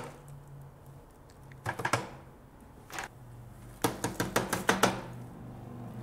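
Plastic housing of an Emoji Crumby mini vacuum banged against a trash can to knock out potato chip crumbs. It gives short runs of hard plastic taps: a few about two seconds in, a single one near three seconds, and a faster run of about six about four seconds in.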